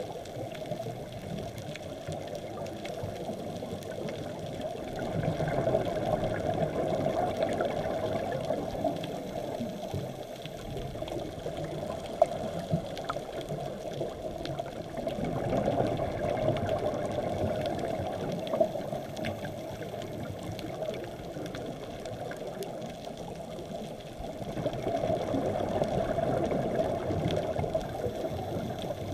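Muffled underwater noise from a camera in its housing during a scuba dive, swelling three times about ten seconds apart as the diver's regulator exhales bubbles, with faint scattered crackling from the reef.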